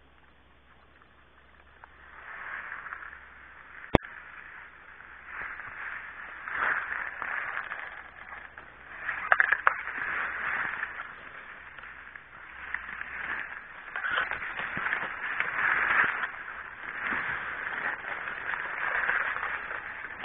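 Dry grass rustling and crackling against the phone as it is moved through the grass, coming in uneven waves, with one sharp click about four seconds in.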